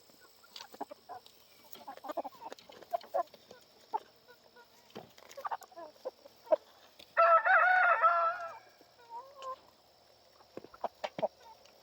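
Meat chickens clucking among scattered soft ticks and knocks, then one loud, drawn-out, wavering call of about a second and a half about seven seconds in, followed by a softer short call.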